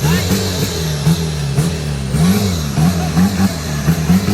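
Off-road 4x4's engine revving up and down repeatedly, the pitch rising and falling about every half second.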